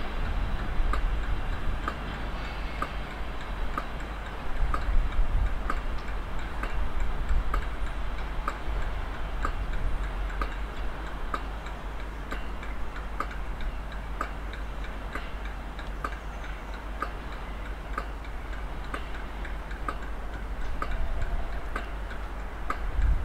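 Steady, evenly spaced ticking, about three ticks every two seconds, over a low rumble.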